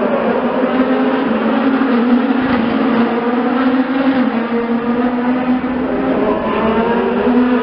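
IndyCar race cars' 2.2-litre twin-turbocharged V6 engines going by in a stream, several loud engine notes overlapping and rising and falling in pitch as the cars pass.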